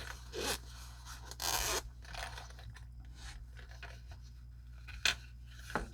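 Rustling and scraping as a watch case and its packaging are handled and opened, with the strongest scrape about a second and a half in and two short sharp clicks near the end.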